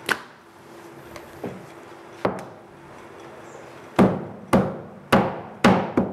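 Butcher's cleaver chopping a goat breast (brisket) on a wooden chopping block: a sharp knock at the start and another a little after two seconds, then five quick chops about half a second apart from about four seconds in.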